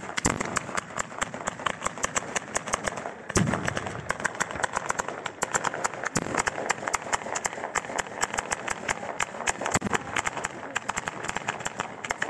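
Ground-level fireworks battery firing a rapid, unbroken string of firecracker bangs, several a second, with a few deeper booms among them.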